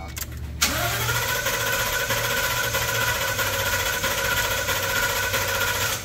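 A Ford 6.8-litre V10 cranks on its starter in clear-flood mode, with the fuel cut so it does not fire. The cranking starts suddenly about half a second in and stops near the end. It is a dead skip, which the mechanic takes for one cylinder lacking compression.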